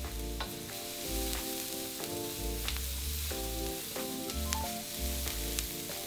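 Garlic, onion and coriander roots sizzling in hot oil in a pan and being stirred, with a few sharp clicks of the spatula. Background music with held chords and bass notes plays over it.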